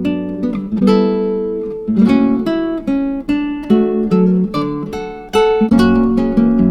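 Background music: acoustic guitar plucking a melody, each note ringing and fading.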